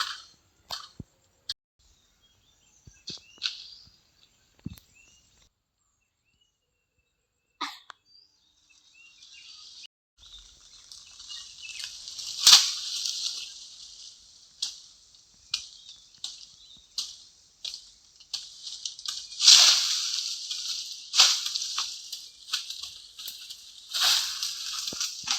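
Hand cutting work on a coconut palm: a few scattered sharp knocks, then from about ten seconds a rustling hiss with sharp strokes standing out roughly once a second.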